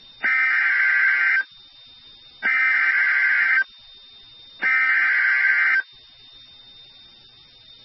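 Emergency Alert System SAME digital header on NOAA Weather Radio: three buzzy, screeching data bursts, each about a second long with a short pause between them. These bursts encode the coded alert (here a severe thunderstorm warning) that triggers weather radios. Low radio hiss and hum fill the pauses.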